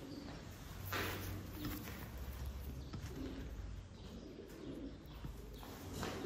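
Domestic tumbler pigeons cooing softly, with a brief rustle about a second in and a flutter of wings near the end.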